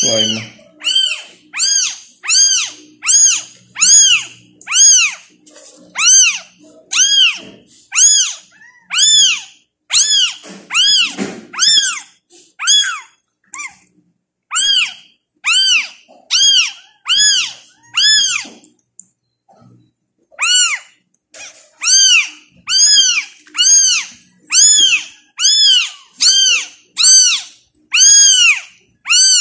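Newborn tabby kitten crying loudly over and over, nearly two high-pitched cries a second, each rising then falling in pitch, with two short pauses partway through. These are the hungry cries of a kitten being introduced to a feeding bottle.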